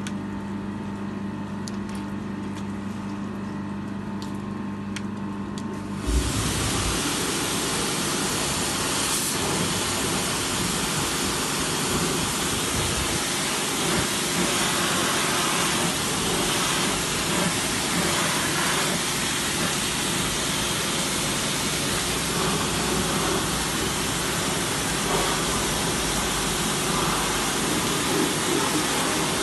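A steady low hum for about six seconds, then a pressure washer's jet starts suddenly and sprays with a loud, steady hiss against the metal underside of a vehicle.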